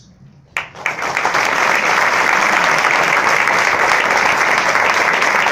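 Audience applause breaking out suddenly about half a second in and building within a second to steady, dense clapping.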